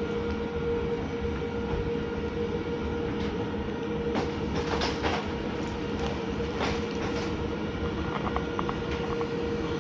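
Passenger train running: a steady rumble with a constant hum, and a few short clatters near the middle.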